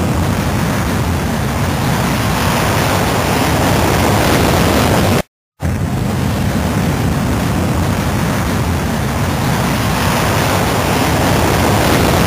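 Rocket launch sound effect: a steady, loud, deep rushing noise of rocket engines at lift-off. It cuts out for a split second about five seconds in and then starts again.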